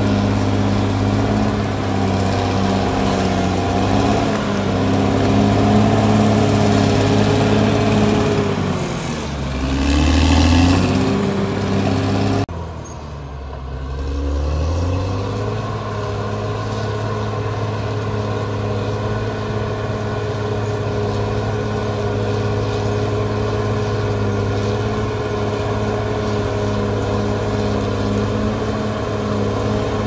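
Caterpillar D6R bulldozer's diesel engine working under load as the blade pushes earth, a steady drone. About nine seconds in the pitch dips and climbs back up; after a sudden break at around twelve seconds the engine runs on steadily.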